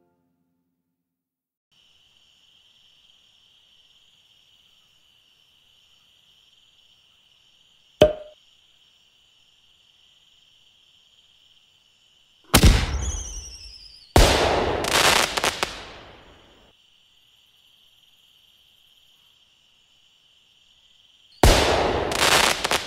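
A sharp click about eight seconds in, then sudden bursts of bang and crackle like fireworks, the first with falling whistles, two close together and another near the end, as the homemade confetti popper is fired. A steady high-pitched whine sits under the quiet stretches.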